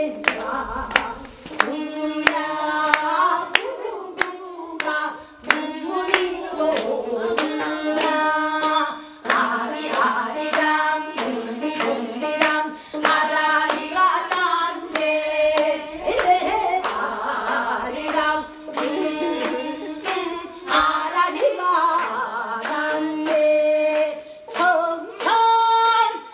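Gayageum byeongchang: a voice sings with long, bending held notes over the frequent sharp plucks of a gayageum, the Korean zither.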